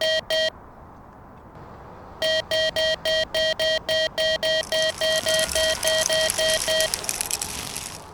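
Japanese railroad crossing warning bell ringing its electronic 'kan-kan' tone, about three to four strikes a second, pausing briefly and starting again about two seconds in. A hissing rush comes in about halfway and fades out near the end.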